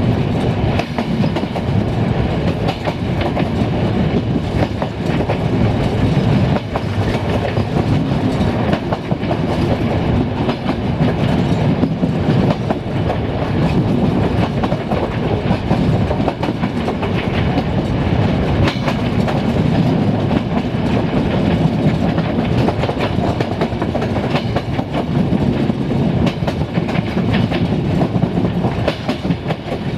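Train running steadily, its wheels clicking over rail joints above a continuous rolling rumble.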